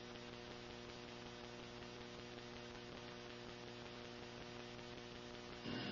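Steady electrical mains hum with a faint hiss in the recording, with no other sound over it; a louder sound starts right at the very end.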